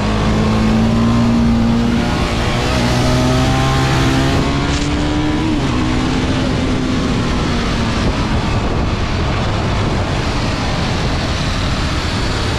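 TVS Apache RR 310's single-cylinder engine running steadily under way, with wind rushing over the microphone. The engine note creeps up in pitch and then eases off about halfway through, leaving mostly wind rush.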